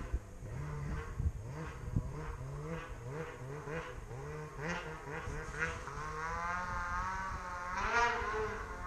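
Snowmobile engine running, its pitch rising and falling again and again, with a higher wavering whine building near the end.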